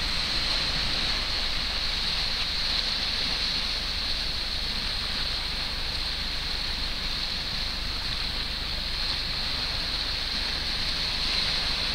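Small Baltic Sea waves washing over a low rocky shoreline: a steady wash of surf with no single breakers standing out.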